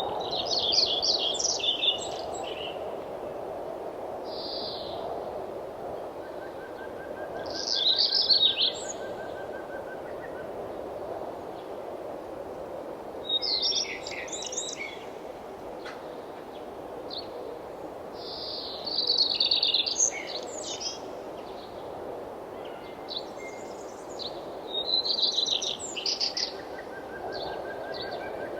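Songbird singing short, rapid, high trilled phrases about every five to six seconds, with a fainter second bird's repeated ticking call between them, over a steady background rush.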